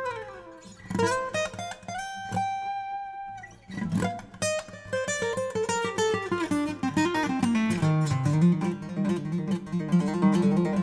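Takamine PTU200 SP-K dreadnought acoustic guitar played solo-style: single plucked notes with sliding pitches at first, then a quick run of notes that descends in pitch from about halfway through.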